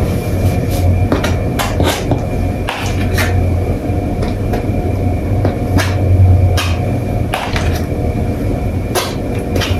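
Metal palette knife tapping and scraping against a stretched canvas as acrylic paint is spread, in short, irregular clicks and knocks over a steady low hum.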